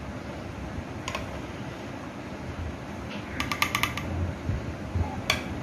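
A spoon clicking against a bowl and a glass baking dish while jelly is spread over a cake layer: a single click about a second in, a quick run of about six light, ringing clicks about three and a half seconds in, and another click near the end, over a steady low hum.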